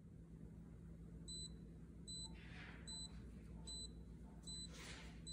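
Faint, short, high electronic beep repeating about once a second, six times, from an electric pressure cooker's control panel as it starts its cooking program. A faint steady hum runs underneath.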